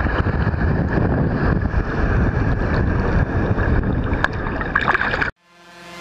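Sea water sloshing and splashing against a waterproof camera housing held at the surface, a dense low wash with small crackles. It cuts off abruptly about five seconds in, and music begins fading in near the end.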